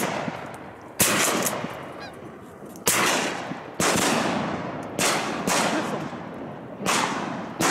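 Volley of shotgun blasts from several hunters firing at ducks overhead, about six or seven shots at uneven intervals, each one ringing out for a moment before the next.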